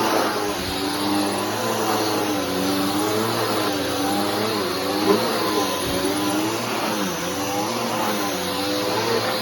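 Bissell Powerforce Helix upright vacuum cleaner running on carpet, its motor pitch rising and falling over and over as it is pushed and pulled, with a single short knock about halfway through.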